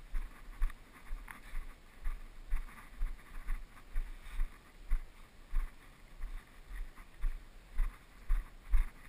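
Walking footsteps, about two steps a second, each a dull thump with a light scuff.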